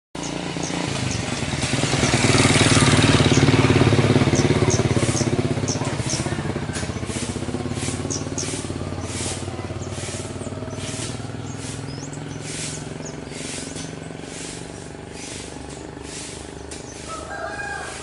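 A motor vehicle passes, loudest a few seconds in, then fading as its engine pitch drops. Over it, birds call with short high chirps and a regular run of sharp ticking notes, about two a second.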